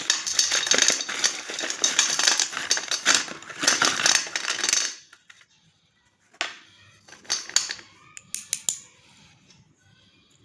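A pack of slate pencils being unboxed: dense crackling and rattling for about five seconds, then a few separate clicks and rustles.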